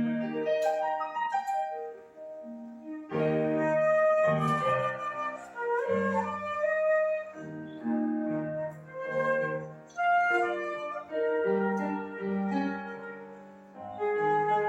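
Flute playing a melody over a piano-like accompaniment, with held notes and several pitches sounding together.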